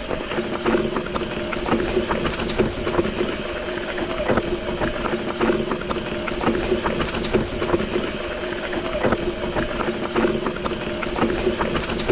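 Mountain bike descending steep, rocky ground, its tyres and frame clattering over rock with frequent knocks, under a steady buzz.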